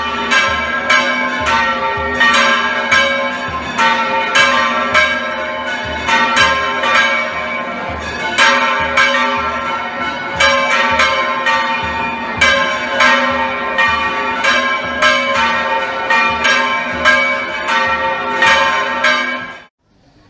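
Church bells pealing in rapid, overlapping strikes at several fixed pitches, each note ringing on into the next. The peal cuts off suddenly near the end.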